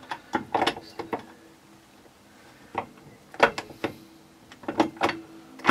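Steel gearbox shafts and gears of a Honda 400/4 engine clicking and knocking against each other and the aluminium crankcase as they are worked into place. There are a handful of sharp clicks, with the loudest a little after halfway.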